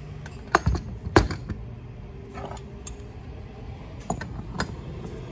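Steel pipe wrenches clanking against brass pipe fittings and a metal work table as a regulator assembly's coupling is worked loose: a run of sharp metallic clinks and knocks, the loudest about a second in, with lighter ones after.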